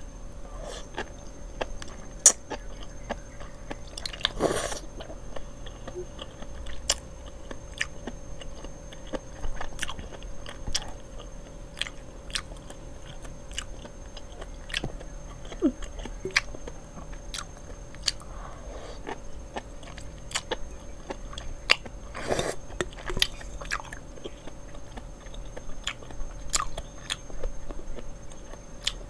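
Close-miked mukbang eating of spicy instant noodles and mushrooms: chewing and biting with many small wet clicks and smacks. Two longer bursts of noise stand out, about four seconds in and again past twenty seconds, over a faint steady hum.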